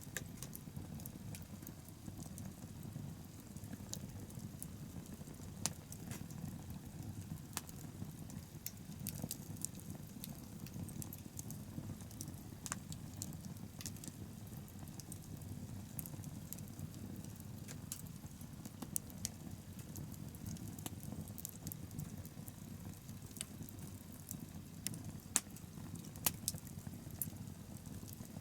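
Wood bonfire burning: a steady low rush of flame with frequent sharp crackles and pops from the burning wood, a few louder pops near the end.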